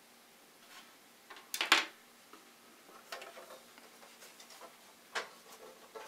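Workbench handling noises from parts being worked on: scattered small clicks and scrapes, with the loudest sharp clatter a little under two seconds in and further clicks about three and five seconds in.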